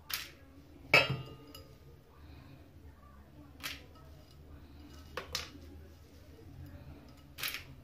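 Kitchenware clinking and knocking against a stainless-steel sink as a bowl of small fish is handled by hand. There are about six separate knocks, the loudest about a second in with a brief ring.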